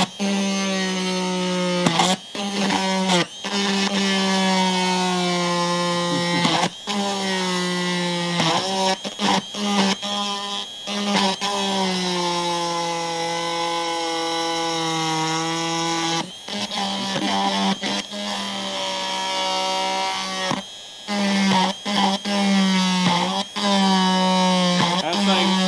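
Handheld electric rotary tool with a cutting bit, whining as it cuts through the trim-piece nuts on a motorcycle seat pan. It runs in spells, cutting out briefly several times and starting again, its pitch dipping a little as it bites.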